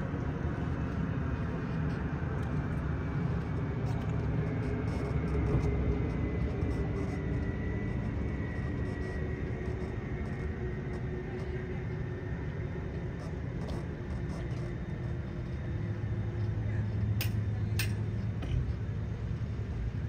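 Engine idling steadily, a low rumble with a faint whine that drifts in pitch. Two sharp clicks come a little after 17 seconds in.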